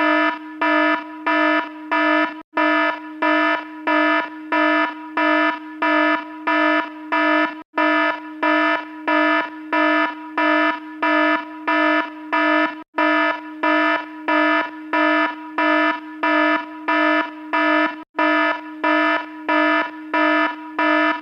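Electronic alarm sounding a buzzy, pitched beep about twice a second, with a quieter tone held between beeps. The pattern cuts out briefly about every five seconds and picks straight back up.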